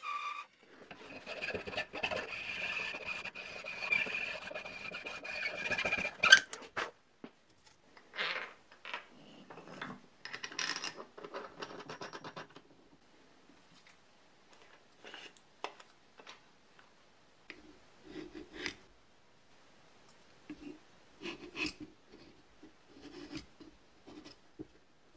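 A bandsaw cutting a small piece of wood for about six seconds, ending with a sharp click. Then Baltic birch plywood trunnion parts rub and scrape against each other as they are handled and fitted, followed by faint scattered taps and rubs of wood being handled.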